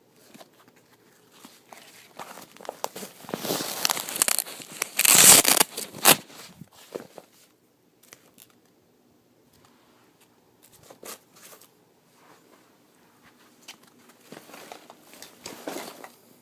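Rustling, crinkling handling noise with a tearing sound, loudest about five seconds in, then a few scattered clicks and another short rustle near the end.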